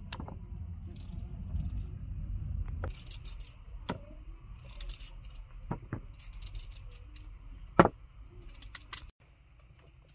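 Kitchen knife slicing a peeled raw potato held in the hand: short crisp cuts, with sharp knocks against a plastic bowl as the slices fall, the loudest nearly eight seconds in. A low rumble sits under the first three seconds.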